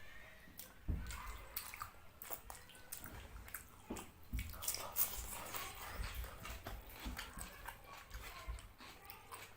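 Wet eating sounds of fish curry and rice: chewing and lip smacks as irregular, close-spaced clicks, with a few soft low thumps.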